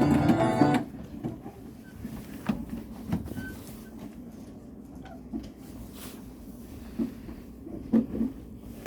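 Guitar-like background music cuts off within the first second. After that there is quiet room noise with a few scattered soft knocks and bumps, the loudest near the end.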